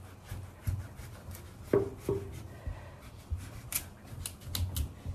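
Kitchen knife scraping and peeling the rind off a pumpkin wedge in a quick, irregular series of short strokes.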